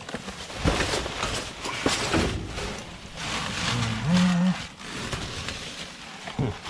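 Rustling, crackling and clattering of bagged trash and packaging being rummaged through in a dumpster, with a brief low hum about four seconds in.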